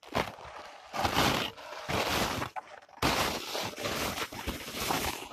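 Footsteps crunching through a crust of frozen snow, about one step a second.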